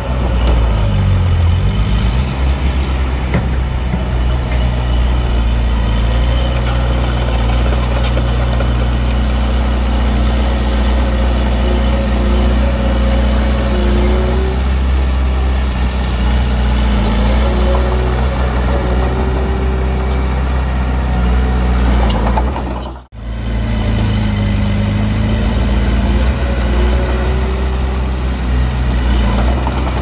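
Diesel engine of heavy earthmoving equipment running steadily, with faint wavering higher tones over the drone. It cuts out for a moment near the end, then resumes.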